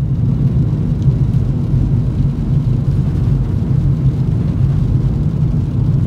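Camper van driving, heard from inside the cab: a steady low rumble of road and engine noise.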